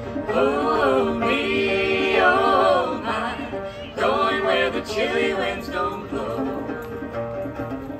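Gourd banjo picked steadily while women's voices sing over it in two long, rising and falling phrases. The banjo carries on alone near the end.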